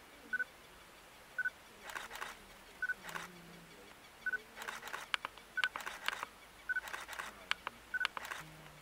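Camera shutters firing in rapid bursts, clusters of sharp clicks, as the leopard is photographed. Behind them a short high note repeats about every second and a half.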